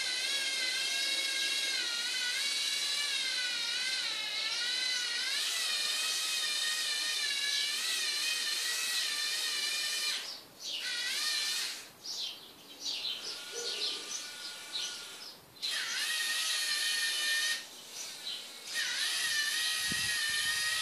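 Lego Mindstorms NXT servo motors and their gearing whining as they drive a Lego Technic truck, the pitch wavering up and down. About halfway through, the whine stops and starts several times as the motors are switched on and off, then runs steadily again.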